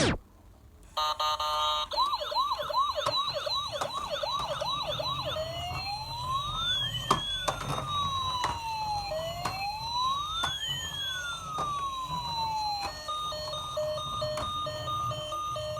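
Electronic siren running through its patterns: a fast warble from about a second in, then slow rising-and-falling wails, then a steady on-off beeping near the end. A low rumble and scattered clicks run underneath.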